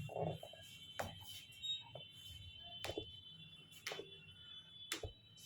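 Faint, even ticks about once a second, like a clock, over a faint steady high whine.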